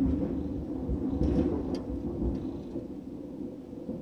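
Thunder after a lightning strike: a loud low rolling rumble, with a few sharp crackles in the first two seconds, slowly fading.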